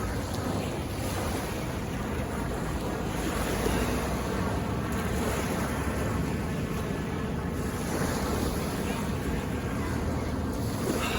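Pacific Ocean surf washing onto a beach, a steady rushing noise, with wind buffeting the microphone.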